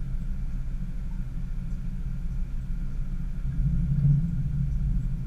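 Mini Cooper S four-cylinder engine idling, heard from inside the cabin as a steady low rumble that swells briefly about four seconds in.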